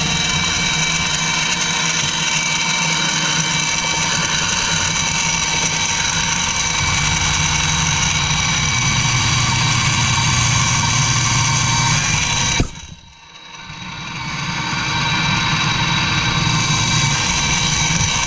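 Electric drill motor running steadily with a constant whine while boring holes in 2x4 blocks. About thirteen seconds in it cuts out suddenly, then builds back up and runs steadily again.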